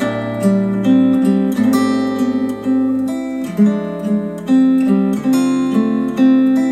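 Instrumental acoustic guitar music: plucked notes and strummed chords in a steady rhythm, played back through hi-fi bookshelf speakers.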